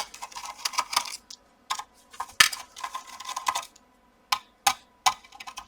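Screwdriver working small screws out of a graphics card, with the metal screws clinking as they are set down: a run of small, sharp, irregular clicks and clinks, with a short pause about four seconds in.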